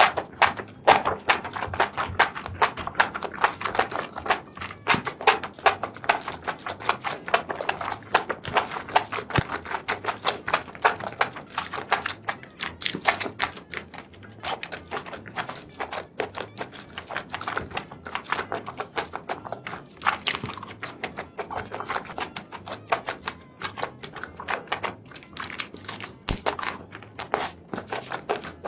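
A person chewing and eating sauced seafood: a dense, irregular run of clicks and crunches from the mouth.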